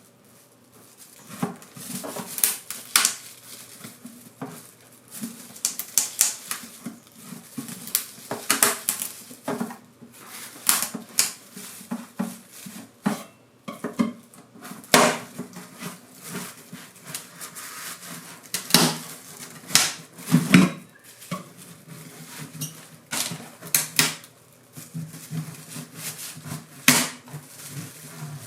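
Metal hand tools clinking and knocking in irregular, sharp strikes against each other and hard surfaces.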